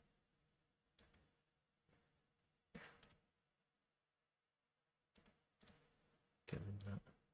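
Near silence broken by a few sparse computer mouse clicks, single and in pairs. Near the end comes a short, low voice sound.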